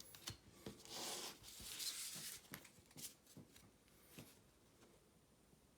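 Faint rustling and sliding of trading cards being handled, with a few light taps, dying away to near silence near the end.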